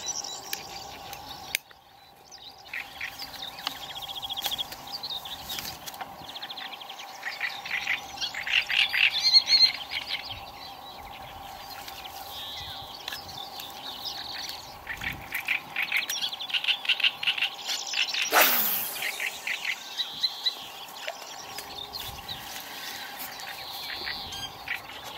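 Wild birds singing and chirping in quick trills over a steady faint hum. About eighteen seconds in, one brief swish falls sharply in pitch.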